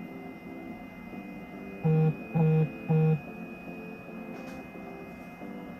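Three short, loud, identical beeps about half a second apart, a little before the middle: the Elegoo Mars 2 Pro resin printer's touchscreen sounding as its menu buttons are pressed. A faint steady hum underneath.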